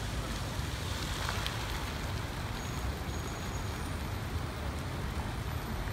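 Steady city street traffic noise: a low rumble of passing vehicles under an even hiss.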